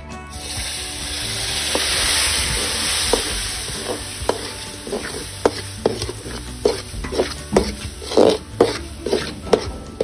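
Milk poured into a hot steel kadai sizzles with a loud hiss that swells over the first two seconds and then slowly dies down. From about three seconds in, a steel ladle stirs and scrapes against the pan in short strokes that come faster and louder near the end, before the sound cuts off suddenly.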